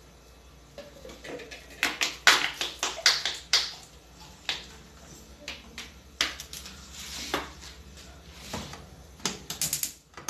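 Kitchen handling sounds: a plastic cooking-oil bottle crackling and clicking in the hand, with light taps and knocks on the countertop, coming in irregular clusters.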